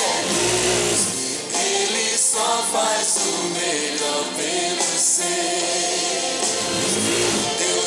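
Christian worship music with choir singing.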